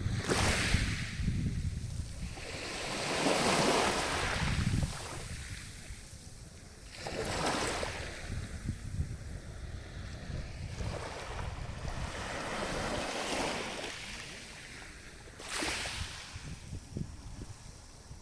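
Sea waves breaking and washing up the beach, coming in surges every few seconds, with wind rumbling on the microphone in the first few seconds.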